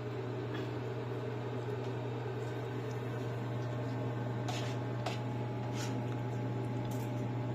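A steady low hum, like a motor or appliance running, over room noise. A few faint soft clicks come in over the second half.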